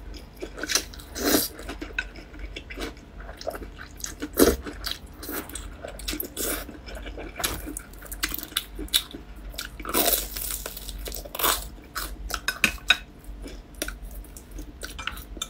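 Close-miked eating sounds: slurping and chewing wide noodles in sesame sauce, then biting and chewing crisp fried dough sticks (youtiao), full of short wet clicks and crunches.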